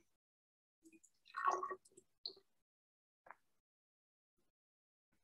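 Faint trickling and dripping of acid solution being poured from a small beaker into a graduated cylinder: a few short liquid sounds in the first few seconds, the clearest about a second and a half in, then near silence.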